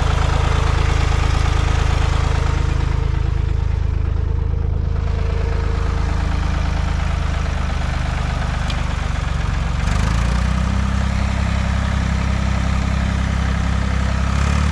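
Old farm tractor's engine running steadily under load as it tows a car by chain. The engine note shifts to a different, slightly louder pitch about ten seconds in.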